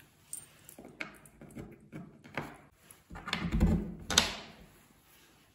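Steel machine screws being handled and set into holes in a laminated board. A few separate metallic clicks and light knocks, with a fuller clatter and thud just after three seconds and the sharpest click just after four seconds.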